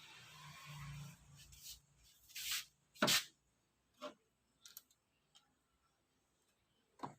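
Scattered handling noises: a few short rubbing and scraping sounds, the loudest about three seconds in, with a faint low hum during the first second.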